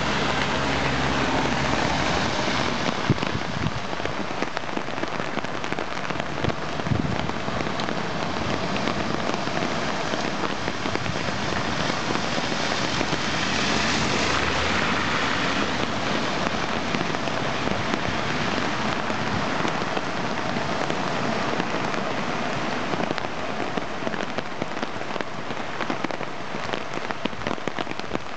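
Steady rain falling on a flooded brick-paved street, a continuous hiss of rain on water and pavement. About halfway through it swells for a few seconds as a car drives close past through the standing water.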